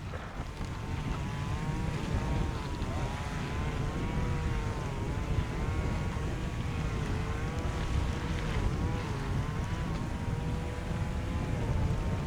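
Jet airliner engines running, a steady low rumble with a faint hum that wavers slightly in pitch, mixed with wind noise on the microphone.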